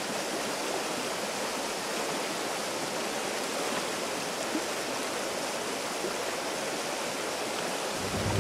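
Mountain stream's water rushing over rocks, a steady, even rush. Low music notes come in near the end.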